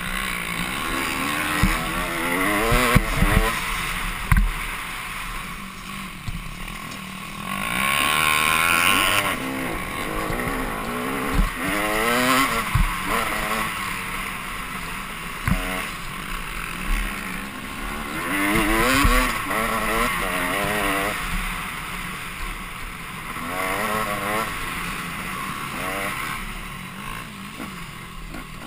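Off-road motorcycle engine heard close up from the bike being raced, revving up and dropping back again and again as the rider accelerates and shifts, with a few short knocks from the bike hitting bumps early on.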